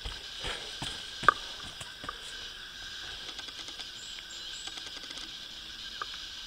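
A trail runner's footfalls on a dirt woodland path as he passes close and runs away, with scattered light knocks and rustles and one sharp knock about a second in, over a steady hiss.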